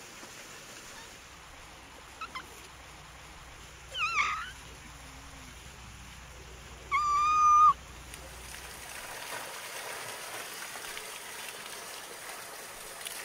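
Cat meowing twice: a short meow that bends in pitch about four seconds in, then a longer, louder, steady meow about seven seconds in. From about eight seconds in, water runs steadily from a stone fountain spout into a wooden barrel.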